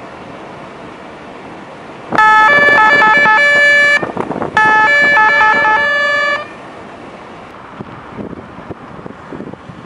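Steady driving noise from a moving car, broken by two loud bursts of stepped electronic tones, each lasting about two seconds with a short gap between, like a short melodic signal.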